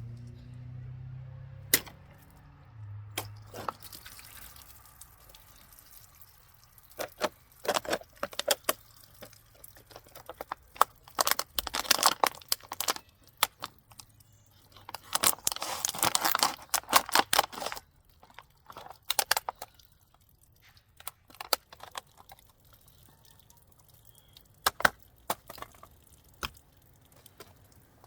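A stainless-steel folding knife's blade striking, stabbing and cutting into a material, heard as scattered sharp clicks and taps. There are two longer bursts of tearing, scraping noise, one near the middle and a longer one a few seconds later.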